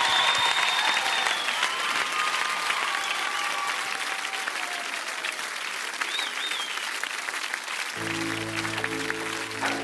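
Studio audience applauding and cheering. About eight seconds in, the band begins the song's introduction with held notes under the applause.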